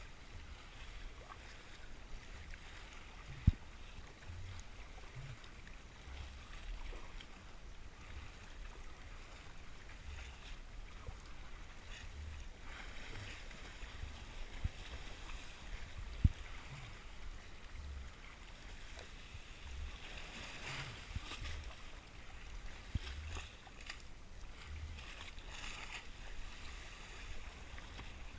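RTM Tempo sit-on-top kayak under paddle on choppy sea: water splashing and sloshing along the plastic hull with each paddle stroke, and dull low thuds throughout. Two sharp knocks, the loudest sounds, come a few seconds in and about midway.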